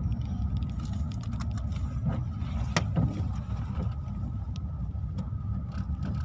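Car driving on a snow-covered road, heard from inside the cabin: a steady low rumble of engine and tyres with a faint steady tone, scattered small clicks and one sharper knock about three seconds in.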